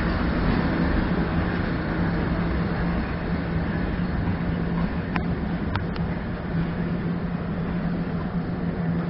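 Passenger train coaches rolling away over the rails, a steady rumble with a low hum that fades slightly. A few short clicks come a little after halfway.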